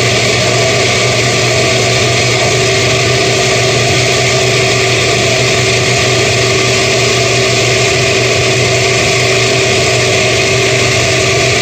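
Electric kitchen blender running steadily at one speed, a loud even motor hum with no change in pitch.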